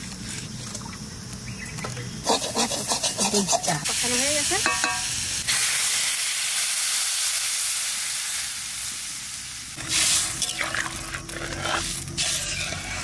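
Water poured into a hot wok of lightly fried taro pieces, sizzling in a loud hiss for about four seconds from the middle. Light clicks come before it, and a spatula scrapes and stirs in the wok near the end.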